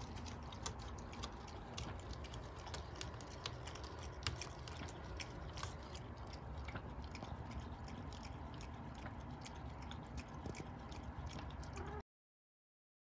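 Shiba Inu eating from a plastic bowl, with many quick, irregular clicks and chewing sounds. The sound stops abruptly about a second before the end.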